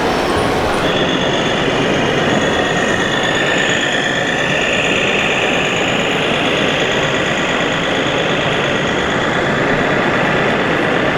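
Whine of a radio-controlled model tractor's electric drive motors and gearbox, several high tones that rise and shift in pitch about four seconds in, over a steady loud rushing background.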